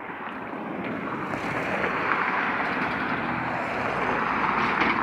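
A road vehicle passing by, its tyre and engine noise swelling over a few seconds, loudest near the end, then fading away.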